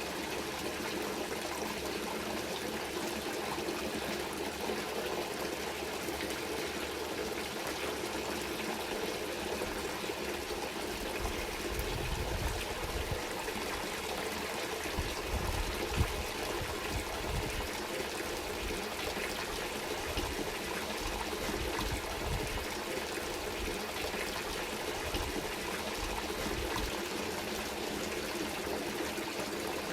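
Water trickling and flowing steadily, like a small stream, with irregular low rumbles in the middle of the stretch.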